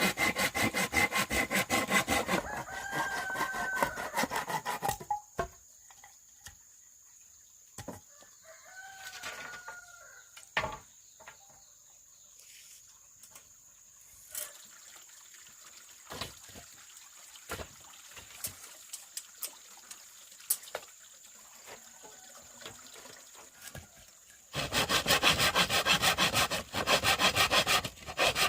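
Hand sawing of bamboo in quick, even strokes, which stops about two seconds in. A rooster crows twice, and scattered knocks and clicks follow. The rapid sawing starts again about four seconds from the end.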